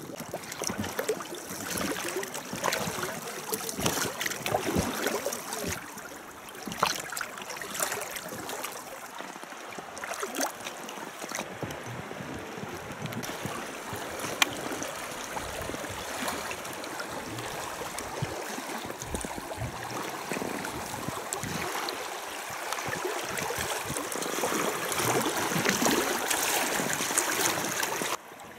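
River water rushing and splashing around a small rowed boat, with scattered splashes, louder near the end as the boat runs over choppy water.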